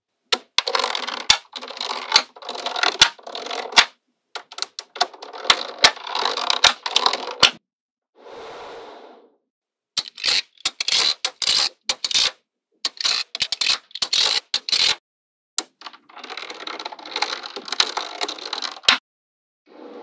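Small magnetic balls clicking and snapping together, with stretches of scraping and rustling between the clicks; each stretch stops abruptly.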